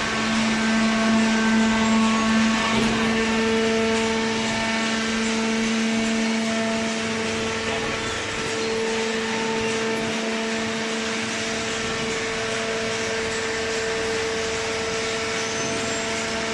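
Vertical hydraulic baler's electric motor and hydraulic pump running with a steady hum and whine.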